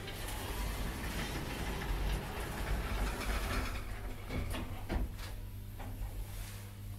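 KONE lift's stainless-steel car doors sliding shut, followed by two clunks about four and a half and five seconds in. A steady low hum from the lift runs underneath.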